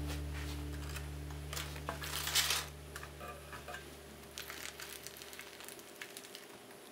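Knife cutting through the soft baked pumpkin and a wedge being lifted out on crinkling aluminium foil: a few soft crackles and rustles, the loudest about two seconds in. A low hum underneath fades away over the first several seconds.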